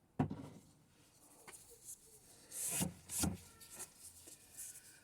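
A jug of drained fork oil set down with a knock, followed by rubbing and scuffing handling noises, with two short scrapes a little past the middle.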